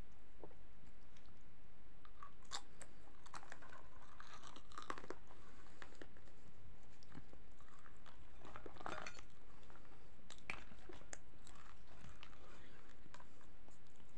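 A person chewing lahmacun, the thin Turkish meat-topped flatbread, close to the microphone, with scattered crisp, crunchy bites. A steady low hiss runs underneath.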